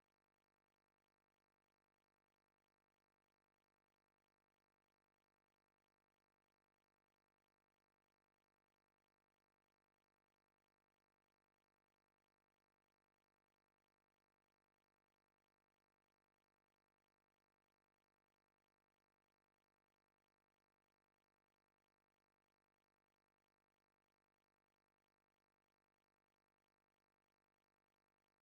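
Near silence: only a faint, unchanging noise floor.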